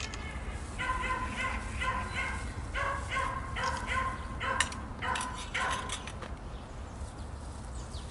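A dog barking repeatedly, short even-pitched barks two to three a second for about five seconds, with a few sharp clicks around the middle.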